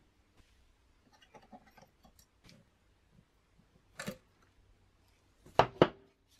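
Snap ring pliers fitting a retaining ring into the top of a RockShox Reba fork's upper tube, with light clicks and rustling. There is a sharp metallic click about four seconds in, then two louder clicks close together near the end.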